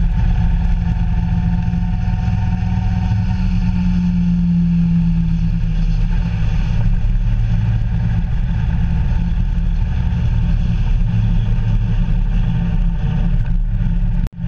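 Vehicle engine running steadily under way, its pitch swelling briefly about four seconds in, with road and wind noise; the sound cuts out abruptly for a moment near the end.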